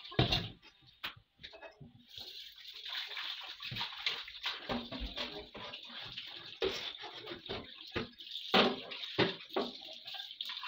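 Kitchen tap running into a stainless steel sink while metal pots are scrubbed and rinsed. The water starts about two seconds in, with repeated knocks and clanks of the cookware against the sink, louder near the end.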